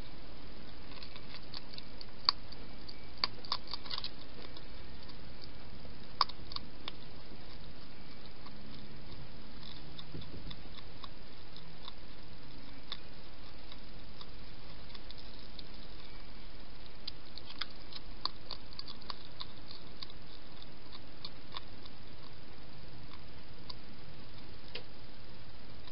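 Hedgehog chewing dry food: scattered crisp clicks and crunches, bunched at times, with a louder click about two and six seconds in, over a steady hiss.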